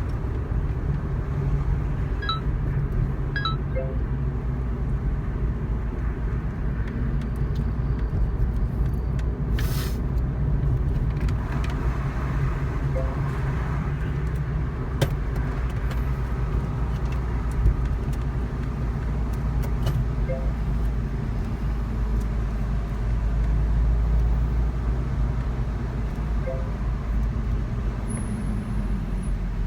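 Subaru WRX STI (VAB) under way, its turbocharged 2.0-litre flat-four running steadily with road and tyre noise.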